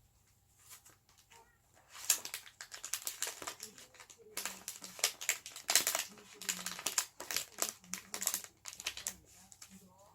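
Crinkling and rustling, like packaging or paper being handled: a dense run of sharp crackles starting about two seconds in and growing louder toward the middle.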